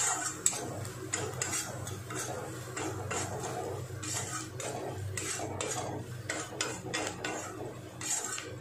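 A metal spatula scraping and stirring onions and spices around a kadai, in repeated strokes about two a second.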